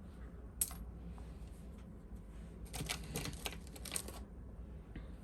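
Small pieces of metal jewelry clicking and clinking together as they are handled: one sharp click about half a second in, then a quick run of light clicks lasting about a second and a half.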